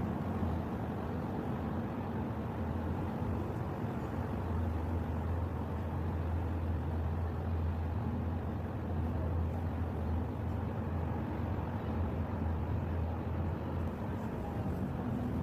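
Steady low engine hum over a constant outdoor rumble.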